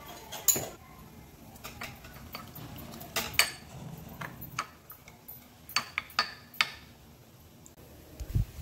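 A black plastic spatula clinking and tapping against a small glass bowl as besan (gram flour) is stirred with water into a slurry: scattered sharp taps at irregular intervals, with a soft low thump near the end.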